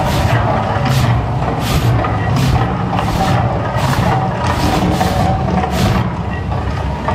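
Mirage volcano show erupting: a loud, deep, continuous rumble with hissing fire-jet bursts about twice a second, which stop near the end.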